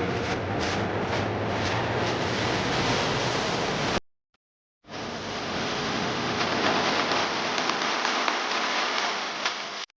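CNC milling machine machining an aluminium billet, a steady hissing noise like spraying coolant. It cuts out abruptly about four seconds in and resumes a second later.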